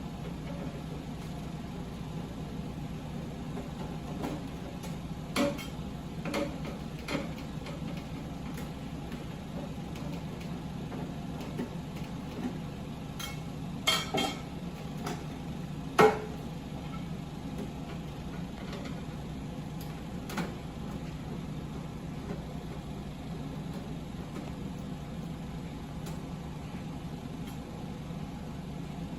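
Scattered clicks and knocks of a screwdriver and the VCR's metal and plastic casing being handled while the cover is unscrewed and taken off, the loudest knock about two-thirds of the way in, over a steady low hum.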